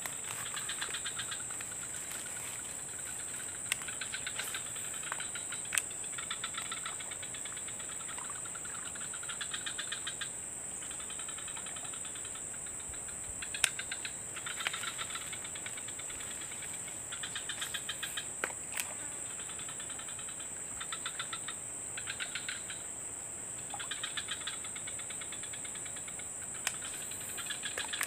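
Insects calling in a steady high-pitched drone, with short bursts of rapid pulsing chirps every few seconds and a few sharp clicks.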